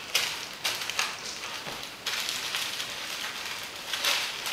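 Crackling rustle of a white bundle of paper being handled, in irregular bursts: several sharp ones in the first two seconds and a louder one near the end.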